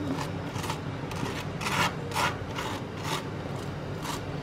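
Table knife scraping back and forth across crisp, well-toasted multigrain bread while spreading hummus, a dry rasping stroke about twice a second.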